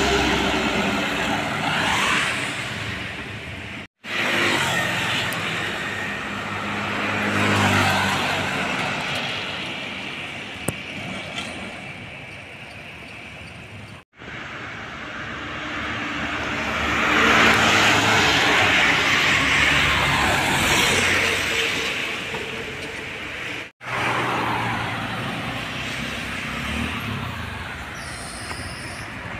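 Diesel cargo trucks driving past on a road: engine and tyre noise swells as each truck nears and fades as it goes by, several times over. The sound drops out abruptly three times, at cuts between passes.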